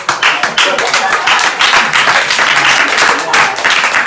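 Live audience applauding: many hands clapping quickly and densely, with no break.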